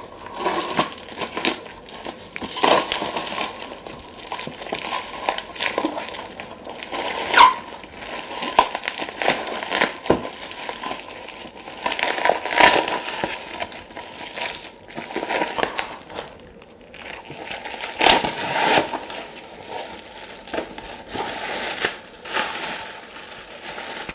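Packing material and cardboard crinkling and rustling in irregular bursts as a shipping box is opened and unpacked by hand.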